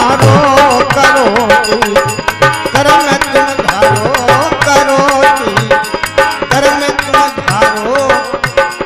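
Instrumental interlude of a folk devotional bhajan: a harmonium melody over a steady hand-drum beat.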